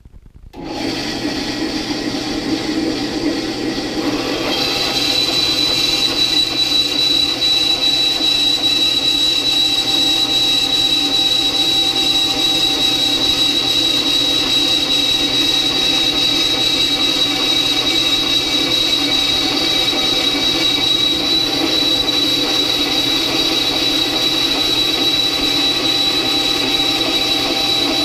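A 10-inch benchtop bandsaw, slowed by a speed-reduction pulley kit for metal cutting, starts running about half a second in. A few seconds later its blade begins cutting a 5/16-inch steel bar, and a steady high-pitched whine rises over the machine's running noise and holds through the cut.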